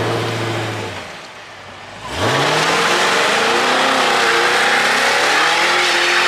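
Cadillac CT5-V's engine blips once, then about two seconds in goes to full throttle for a burnout. It holds high, wavering revs while the rear tyres spin with a dense squealing hiss.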